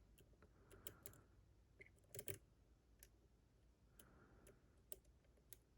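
Faint, scattered metal clicks of a lock pick probing the pins inside a Heracles Y7+ lock, irregular and spread through the moment, with one slightly louder click about two seconds in.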